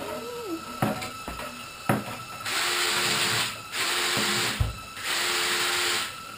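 Cordless drill spinning a flex-shaft drain cleaner with Renssi chain heads in the sink drain, run in three short bursts of about a second each with a steady motor tone. A few knocks come before the runs.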